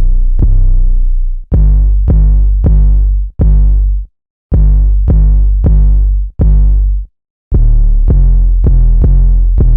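808 bass playing a pattern solo: a string of deep, sustained notes, each starting with a click, stepping between a few low pitches, with two short silences partway through.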